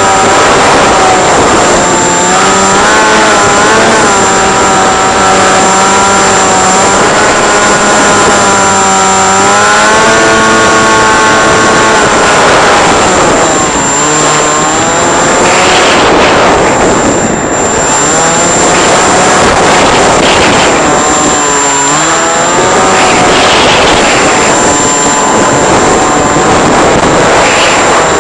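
Motor and propeller of an FPV radio-controlled model aircraft running at speed, its pitch rising and falling repeatedly with throttle changes. Strong wind rushes over it in surges, and a thin steady high whine runs underneath.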